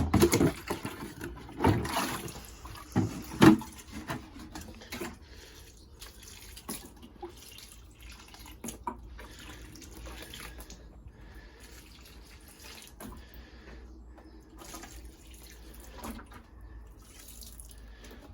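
Water pouring as plants are fed and watered, with several loud knocks in the first few seconds.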